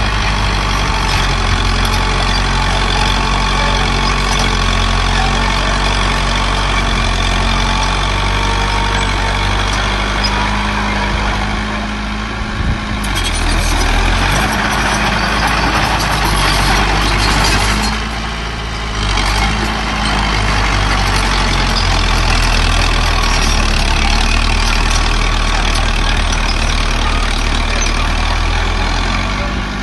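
Heavy diesel machinery (a small bulldozer and dump trucks) running steadily. A louder rushing noise rises over the engines from about 13 to 18 seconds in.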